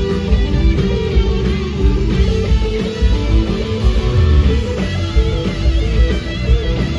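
Live blues-rock band: two electric guitars trading lead lines over bass and drums, with wavering, bent guitar notes.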